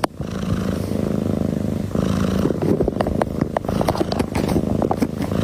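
A cat purring loudly close to the microphone, a steady low rumble, with scattered short clicks and rustles over it.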